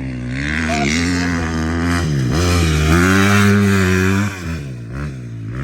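Dirt bike engine revving hard under acceleration. Its pitch dips sharply for a gear change a little past two seconds in, climbs and holds high, then drops off about four seconds in as the throttle is rolled back.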